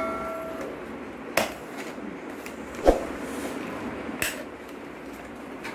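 Scissors cutting stiff card: three short, sharp snips about a second and a half apart over a steady faint hiss. A bell-like ring fades away at the very start.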